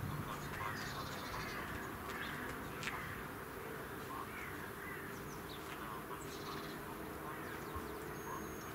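Birds calling in short, scattered calls throughout, over a faint steady hum.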